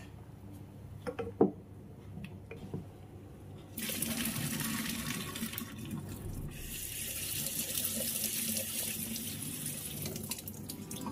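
A knock about a second and a half in, then from about four seconds in, the pasta's hot cooking water is poured from the saucepan through a mesh strainer into a stainless-steel sink, splashing steadily with a brief break partway through.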